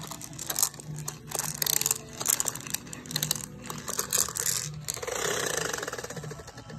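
Irregular clicks and rattles from a baby's plastic bead toy being handled and knocked about. A longer rustling scrape comes about five seconds in.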